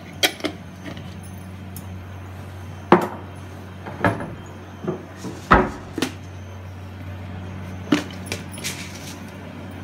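A handful of sharp knocks and clicks at irregular intervals, typical of household or kitchen clatter, over a steady low hum.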